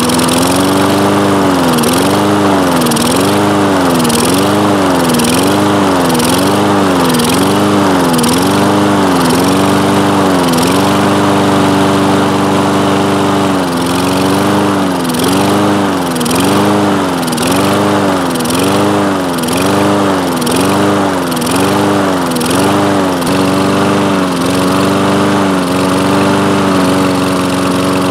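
Toro Recycler mower's Kohler single-cylinder engine running just after a starting-fluid prime, surging: it hunts up and down in speed about once a second, holding steadier for a few seconds in the middle and again near the end. Surging like this, which eases with the throttle held open or the choke closed, points to a lean mixture, more air than fuel, often a sign of a carburetor that is not clean enough.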